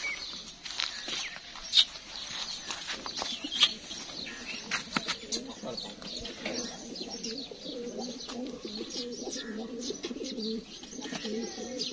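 Doves cooing, a low wavering call that runs on through the second half, with small birds chirping throughout.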